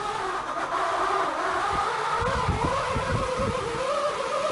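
Diatone GT200S FPV racing quadcopter's brushless motors and propellers whining as it lifts off and hovers, the pitch wavering and creeping up with throttle. Low thuds come and go in the middle of the flight.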